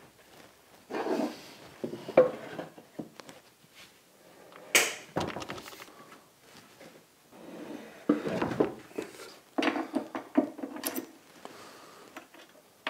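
Heavy bench pillar drill being shifted into position on a wooden cabinet top: scattered knocks, scrapes and bumps of metal on wood, with one sharp knock about five seconds in.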